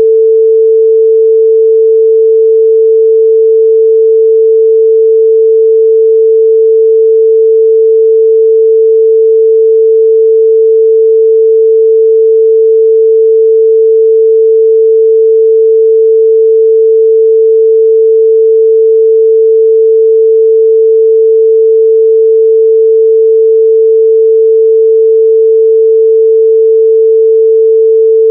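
A pure 445 Hz sine-wave test tone held steady and loud at one pitch, with no harmonics.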